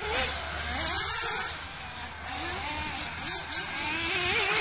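Motor of a radio-controlled off-road buggy running on a dirt track, its pitch rising and falling with the throttle.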